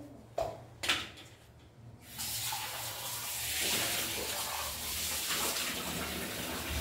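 A kitchen tap running, water rinsing something clean, starting about two seconds in after two light knocks.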